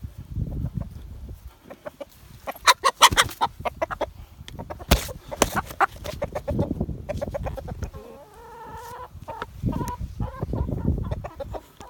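Silver laced Wyandotte hen clucking and squawking as she is chased and caught by hand, with rustling and scuffling; a burst of sharp rapid sounds about three seconds in, a knock around five seconds, and a drawn-out call near the end.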